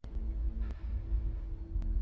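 Low droning background music starts abruptly after silence: a deep rumble under two steady held low tones, with a few faint clicks.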